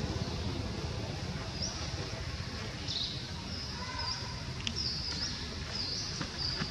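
A series of short, high-pitched animal squeaks or chirps, beginning about a second and a half in and repeating every half second to a second, over a low steady rumble.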